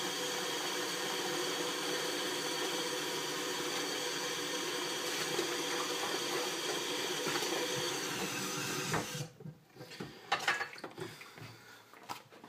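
Tap water running steadily into a plastic bucket in a kitchen sink, filling it. The flow stops about nine seconds in, followed by a few knocks and clunks as the bucket is handled.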